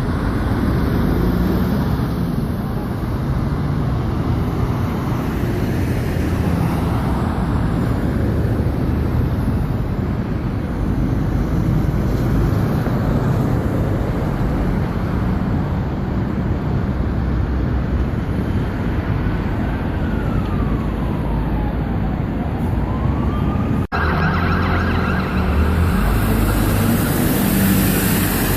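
Steady city road traffic, with buses and other vehicles running past. A faint emergency-vehicle siren wails a little past the middle, its pitch falling and then rising again.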